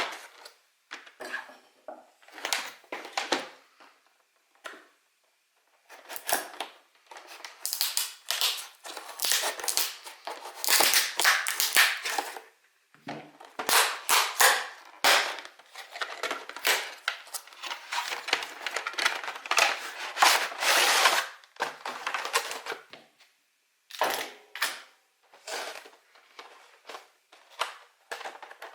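Packaging of a trading-card collection box crinkling and crackling as it is opened and handled. The plastic wrap and cardboard crackle in dense runs, with two short pauses.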